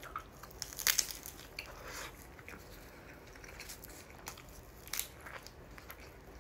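Biting into and chewing a nori-wrapped chicken teriyaki mayo rice ball: soft mouth sounds with sharp crackles and crunches from the seaweed wrap. The loudest crunches come about a second in and again near five seconds.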